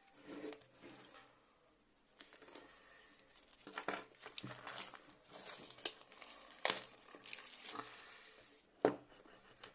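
Clear plastic shrink-wrap being peeled and pulled off a phone box, crinkling and crackling, with a few sharp clicks, the loudest near the end.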